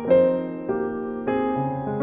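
Background piano music, a new note or chord struck about every half second.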